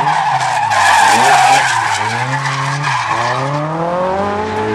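Drift car sliding sideways through a corner with its tyres skidding, loudest in the middle. The engine note dips and then climbs as the throttle is worked.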